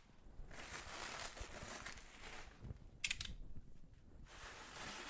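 Clear plastic wrapping rustling and crinkling as it is handled on a large machine, with one short sharp crackle about three seconds in.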